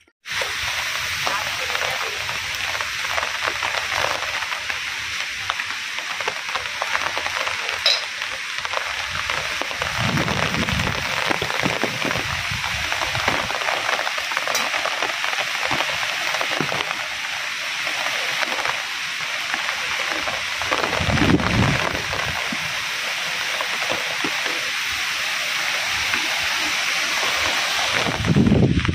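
Heavy rain falling in a steady, dense hiss, with two brief low rumbles about ten and twenty-one seconds in.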